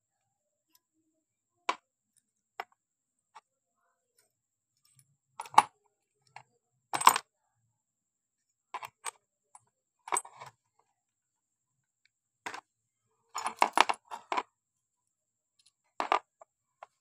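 Metal parts of a diesel engine's plunger-type fuel injection pump clicking and clinking against each other and the bench as it is taken apart by hand. Scattered single sharp clicks, with a quick run of several clinks about three-quarters of the way through.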